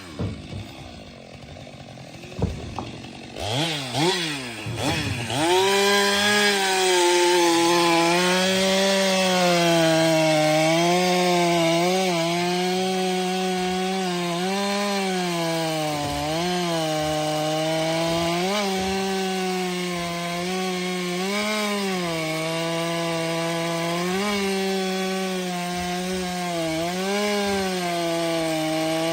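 Stihl MS 462 C-M two-stroke chainsaw running quietly for the first few seconds, revving up and down around four seconds in, then held at high speed cutting through wood. Its pitch dips briefly every second or two under load.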